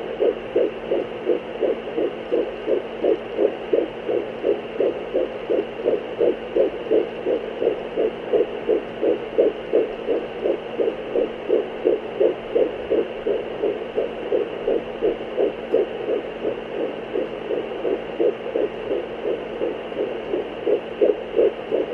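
Fetal heartbeat picked up by a Doppler monitor: a fast, even run of whooshing beats, about two and a half a second, over a steady hum from the device.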